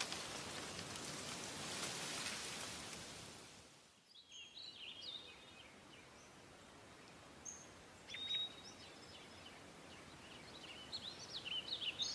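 Even rain-like hiss that fades out about four seconds in, followed by scattered bird chirps over a quiet background, more frequent near the end.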